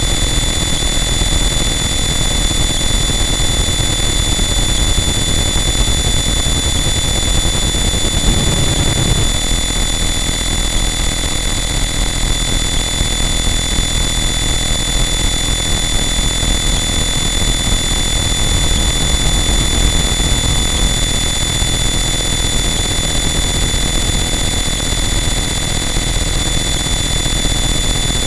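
Harsh noise wall: a loud, unchanging wall of dense distorted static with steady high whining tones running through it, and a brief low swell about eight seconds in.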